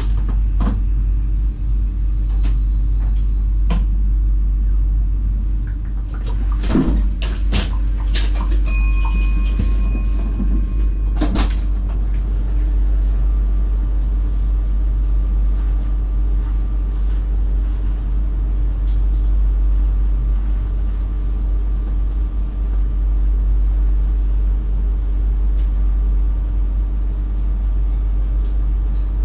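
Steady low hum inside the cab of a VIRM electric train standing at a platform. A few sharp clicks and knocks come about seven and eleven seconds in, with a short electronic beep of about a second and a half between them.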